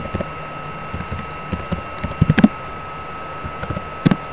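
Computer keyboard typing: irregular keystroke clicks, with a quick run of louder taps about halfway through and a few more near the end.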